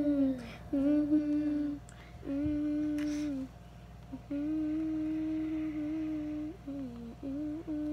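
A girl humming a wordless tune with her mouth closed, in long held notes broken by short pauses and a few steps in pitch. A small sharp click about three seconds in.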